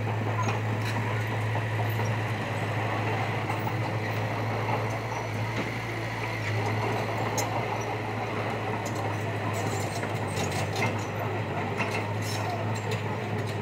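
Diesel engine of heavy construction machinery running steadily with a low hum, with a few short knocks and clanks in the second half.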